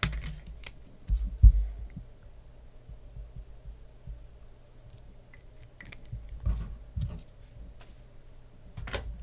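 Scattered computer keyboard and mouse clicks with a few soft knocks on a desk, over a faint steady low hum.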